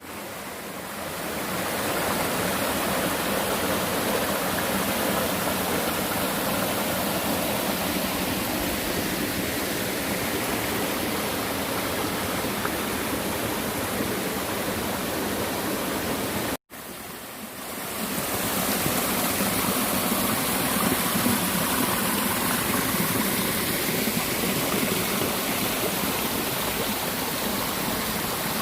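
Mountain stream rushing steadily over rocks. The sound fades in at the start, cuts out abruptly about two-thirds of the way through, and fades back in.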